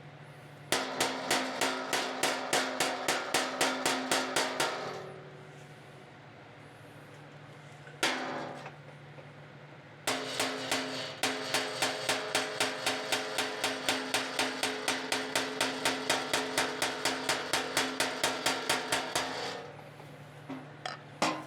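Body hammer tapping the sheet-metal fender against a dolly to work out a dent, in quick, even runs of about four to five blows a second, the panel ringing with each blow. A run of about four seconds, one single blow, then a longer run of about nine seconds.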